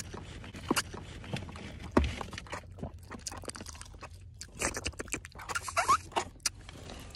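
Mouth and eating sounds close to the microphone: wet smacks and clicks scattered throughout, with a cluster of louder smacks about five to six seconds in.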